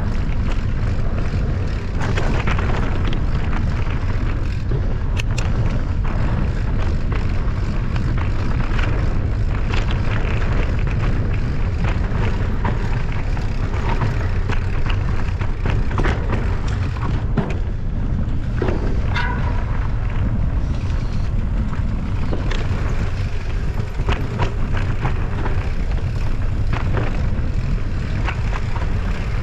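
Steady wind rumble on the microphone of a camera carried on a mountain bike while riding, with scattered clicks and rattles from the bike over rough ground.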